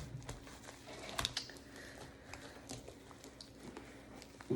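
Faint, scattered small clicks and soft rustles of things being handled at close range, with a slightly sharper click about a second in.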